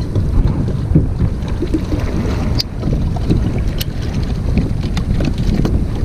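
Wind buffeting the microphone over choppy sea around a kayak, a steady low rumble, with a few light clicks and knocks as a freshly caught fish is handled and unhooked.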